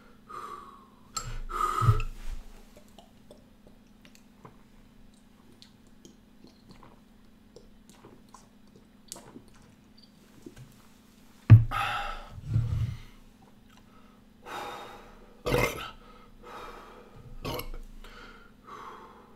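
A man chugging bottled beer: a long quiet stretch of swallowing, then a sharp knock as a glass bottle is set down about halfway through, followed by a deep burp and gasping breaths. Two more knocks of bottles and more breaths come near the end.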